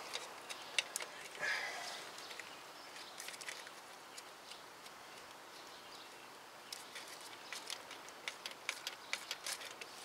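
Faint, irregular small metallic clicks and ticks over a low hiss: the starter's battery cable terminal and its nut being fitted onto the starter's terminal stud by hand.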